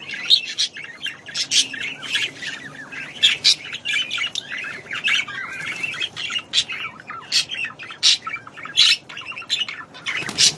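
Parrot chattering and chirping without pause, cut through by frequent short, sharp squawks.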